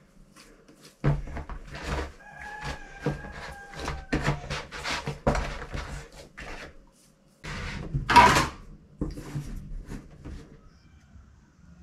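Hands kneading chapati dough in a plastic basin: a run of irregular thumps and knocks as the dough is pressed, slapped and turned against the basin, with the loudest scuffing thump a little past eight seconds.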